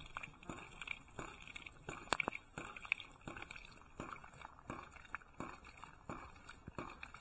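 Hydraulic ram pump clicking about twice a second as its waste valve slams shut over and over, with water splashing from the valve. Each click is the water-hammer pulse that drives water up the line to the pressure tank.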